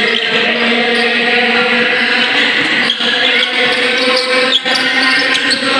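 Continuous din of spectators talking and shouting during a basketball game, with a basketball bouncing on the court floor and a few sharp knocks.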